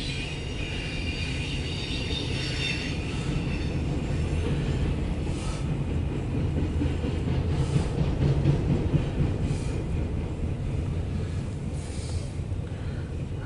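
Loaded autorack cars of a CSX freight train rolling past: a steady rumble of steel wheels on rail. High wheel squeal sounds for the first few seconds, and brief higher rushes come every couple of seconds.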